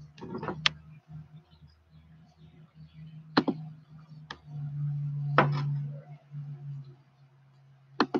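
A glass tumbler knocking and clicking on a tabletop several times over a steady low hum.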